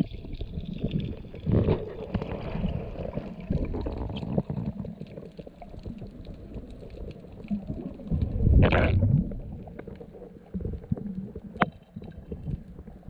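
Muffled underwater rumbling and gurgling of water moving against a submerged camera's housing, with irregular surges. There is a louder surge about eight and a half seconds in and a sharp click near the end.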